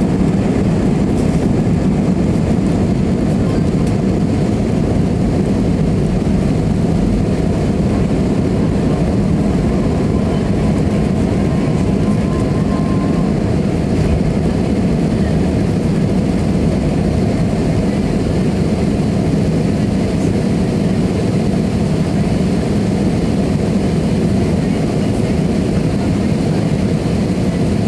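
Aeroplane engines running during take-off: a loud, steady rumble that holds an even level and pitch throughout.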